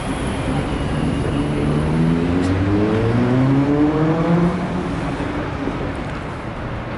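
Road traffic, with one motor vehicle accelerating: its engine note rises steadily for about three seconds, starting about a second and a half in, then fades back into the general traffic noise.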